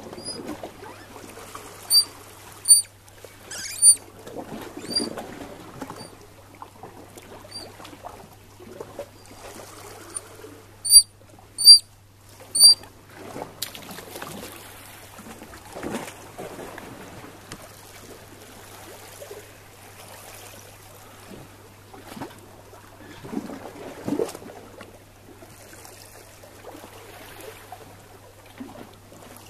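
Eurasian otter giving short, high-pitched squeaking whistles: about a dozen single peeps, some in quick pairs, through the first half. After that, water sloshes and laps against the rocky harbour edge, with a couple of small splashes.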